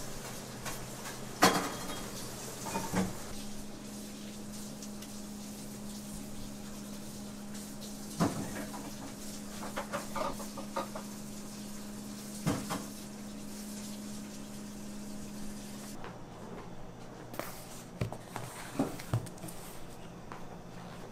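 Scattered light knocks and clicks of cake-decorating tools and piping bags being handled on a work surface, over a steady low hum that stops about three-quarters of the way in.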